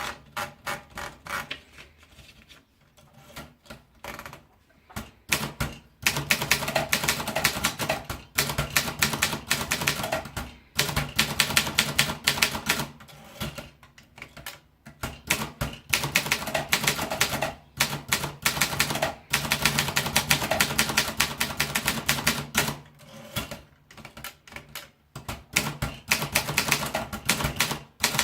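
Olympia Progress typewriter being typed on: a few scattered keystrokes at first, then about six seconds in, fast runs of rapid key strikes broken by short pauses.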